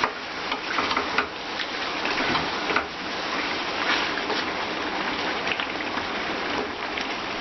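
Chicken, curd and masala frying in oil in a pan: a steady sizzle with scattered crackles.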